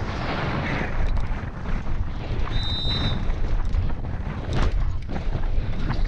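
Wind buffeting the helmet camera's microphone over the rattle of a downhill mountain bike running fast on a dry dirt trail, with repeated clicks and knocks from the bike over bumps. A brief high squeal comes about two and a half seconds in.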